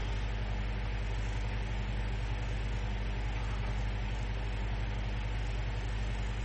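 Steady low electrical hum with a constant hiss over it: the background noise of a desktop recording microphone, with no other sound.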